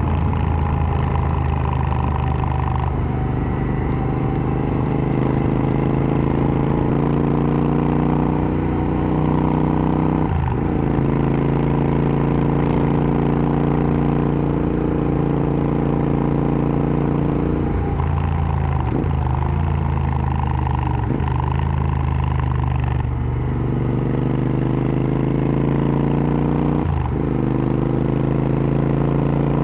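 Royal Enfield Interceptor 650's parallel-twin engine through an aftermarket AEW TE 102 exhaust, running under way with its pitch drifting up and down and several brief breaks where gears are changed, about ten seconds in, three times around eighteen to twenty-one seconds in, and near the end.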